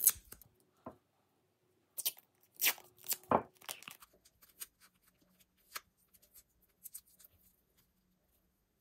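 Adhesive tape being pulled off its roll and torn, a few short rips about two to four seconds in, followed by faint small clicks and rustles of handling.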